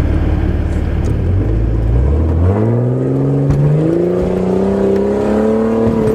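Jeep Cherokee's engine pulling hard in low range up a steep dirt climb. It runs low and steady at first, then its pitch rises about two seconds in and holds high under load.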